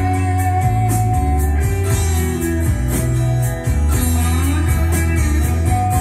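Recorded 1970s Southern rock ballad played back over a hi-fi system: an electric guitar lead holds long notes that bend and glide, over bass and drums with a steady cymbal beat.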